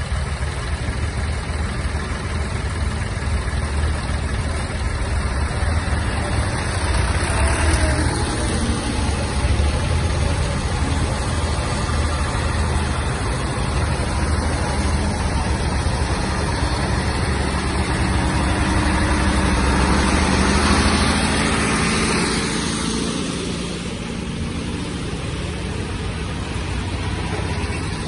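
Diesel tractor engines running as tractors pull out and drive past one after another: an older red tractor, a large John Deere and Massey Fergusons. The engine sound swells twice, about eight seconds in and again a little past twenty seconds, as tractors pass close by.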